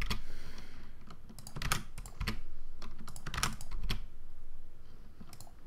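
Keystrokes on a computer keyboard: a handful of separate key presses at irregular intervals with short pauses between them.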